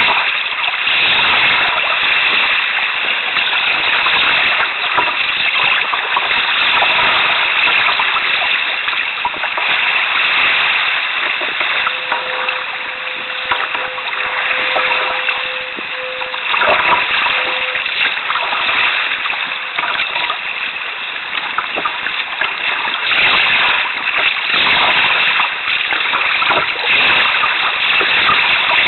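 Choppy seawater splashing and rushing around the canoe, a steady loud wash of water. A faint steady tone sounds for a few seconds from about twelve seconds in.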